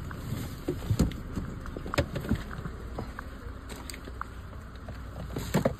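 Scattered light knocks and shuffling of someone moving about inside a camper van, over a low steady rumble.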